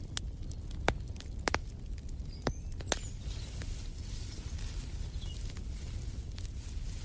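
Wood fire crackling in a fireplace: irregular sharp pops and snaps, a few louder ones in the first three seconds, over a low steady rumble of burning.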